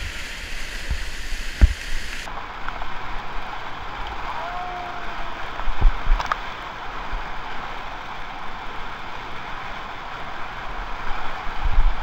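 Rushing whitewater of a creek rapid, heard close up from a kayak running through it, with a few dull low thumps about two seconds in, around six seconds in and again near the end.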